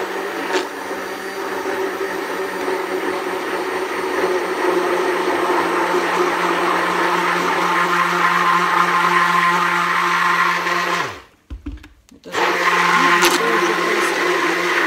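Hand-held immersion blender running in a tub of egg and mustard as sunflower oil is poured in slowly, whipping it into mayonnaise. The motor stops about eleven seconds in, its pitch dropping as it winds down, and starts again about a second later.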